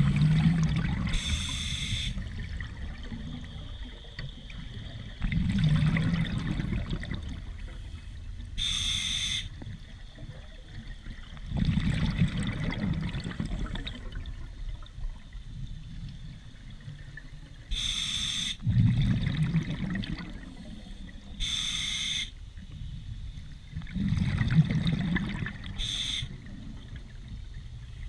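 Scuba diver breathing underwater through an open-circuit regulator: a short high hiss from the demand valve on each inhale and a low bubbling rush of exhaust bubbles on each exhale, about one breath every six seconds.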